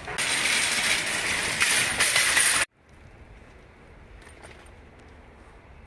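Loud, even rustling hiss that cuts off suddenly about two and a half seconds in, leaving only a faint steady hiss.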